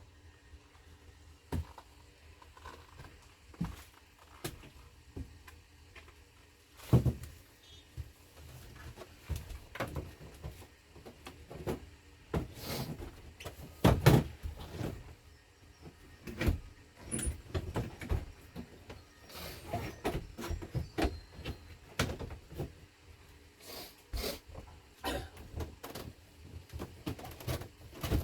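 Irregular knocks, clicks and rattles of parts being handled during dashboard work, with some rustling. The loudest knocks come about 7 seconds in and again around 13 to 14 seconds.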